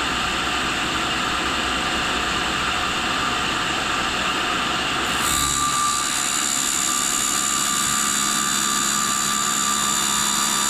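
Tool and cutter grinder running, its reinforced abrasive cutoff wheel and motorised work head spinning. About five seconds in the wheel bites into the turning high-speed steel blank, and a steady high grinding whine joins the machine noise as the cut-off begins.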